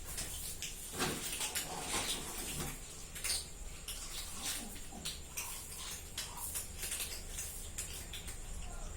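A cat eating from a bowl: irregular small clicks and crunches of chewing and of food against the dish.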